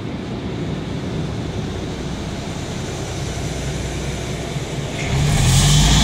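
Yellow subway work train rolling slowly past the platform with a steady rumble. About five seconds in it gets louder, with a high-pitched squeal over a low hum.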